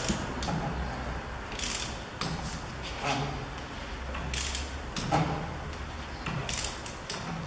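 Hand socket ratchet clicking in short, irregular strokes with light metal clinks, as bolts on the front suspension strut are worked.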